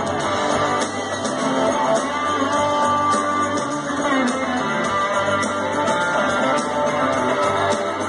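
A rock band playing live, with electric guitar to the fore, heard through a handheld recording made from far back in the audience.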